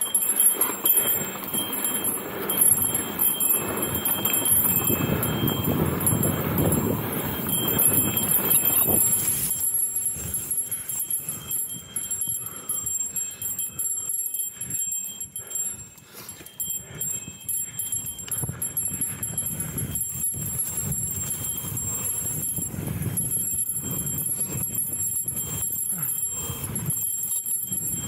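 Mountain bike, a 2013 Specialized S-Works Enduro 26, riding a dirt trail. A dense rushing noise fills the first nine seconds or so, then eases to a quieter stretch of rattles, clicks and knocks from the bike over the ground.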